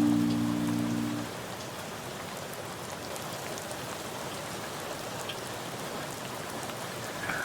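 Steady rain falling, with scattered drops ticking through an even hiss. A held music chord fades out in the first second or so, leaving only the rain.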